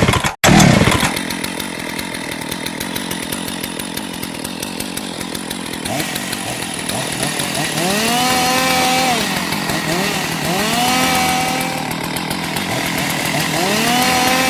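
Chainsaw engine running at idle, then revved three times from about eight seconds in; each time the pitch rises, holds, and drops back to idle.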